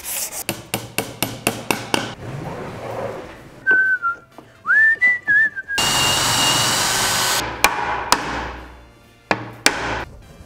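A quick run of light knocks, a short whistle-like tone that bends in pitch, then a cordless drill running for about a second and a half. It ends with several blows of a wooden mallet knocking the wooden shelf panels together.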